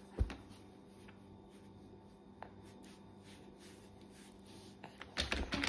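A mostly quiet room with a short soft knock just after the start and a few faint ticks, then a burst of scraping and rubbing near the end, as a metal spoon is worked through a bowl of porridge while feeding a baby.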